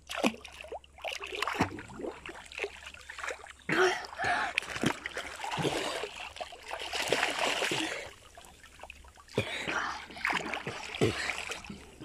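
Sea water splashing and sloshing as swimmers kick and paddle alongside a wooden boat's side, with irregular short splashes.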